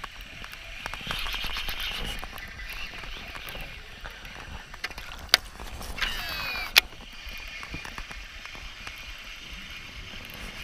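Shimano Antares DC baitcasting reel in use: a stretch of fine ticking from the retrieve, then a sharp click and, about six seconds in, a short falling whine from the reel's electronic DC spool brake during a cast. The whine ends in a second click as the reel is engaged again.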